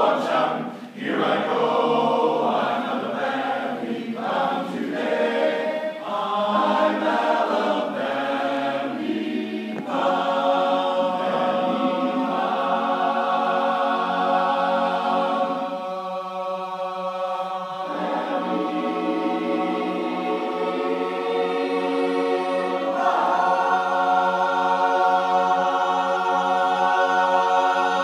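Men's barbershop chorus singing a cappella in close harmony. The first several seconds are short, choppy phrases; from about ten seconds in the chorus holds long sustained chords, swelling to a loud held final chord near the end.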